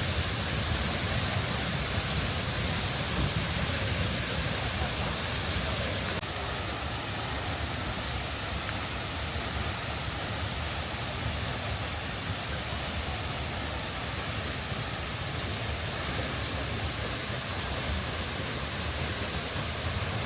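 Steady rushing roar of Seljalandsfoss, a 60 m plunge waterfall. About six seconds in, the highest hiss drops away slightly.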